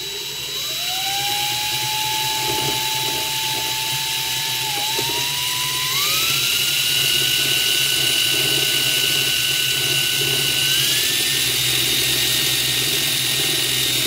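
Power drill spinning the armature of a Miele MXT 40-66/2 washing machine drive motor. The whine rises in pitch in three steps, about a second in, near the middle and again near the end, as the drill is run faster.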